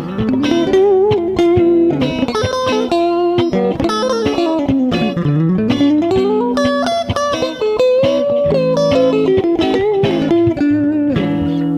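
ESP LTD EC-256 electric guitar played on a clean tone: a single-note melody with slides and bends over lower ringing notes, with a long slide down and back up about five seconds in.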